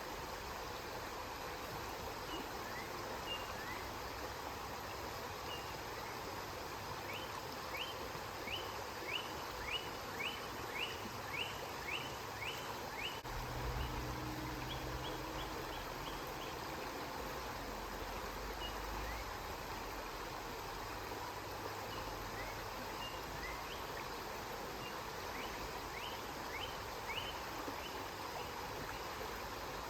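River water flowing steadily. A bird repeats short, quick chirps, a run of about a dozen a third of the way in and a few more near the end, and a low rumble rises and fades in the middle.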